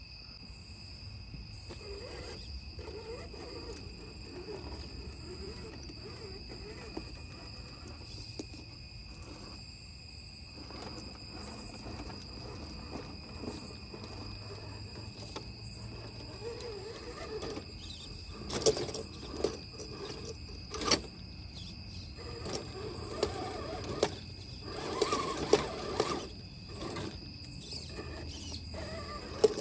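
Laegendary Grando 1:10 RC trail crawler whirring in stop-start bursts from its electric motor and geared drivetrain as it crawls over stone steps. Several sharp knocks and clatters come in the second half as it bumps over the step edges. A steady high insect trill runs underneath.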